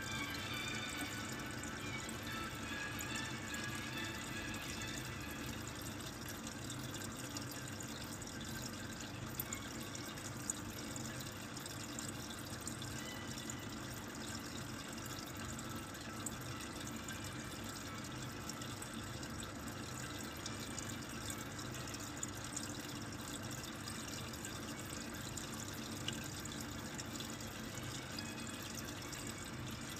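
Steady low hum and water-like hiss from the running indoor-garden appliance, with a few faint clicks as the buttons on its control panel are pressed.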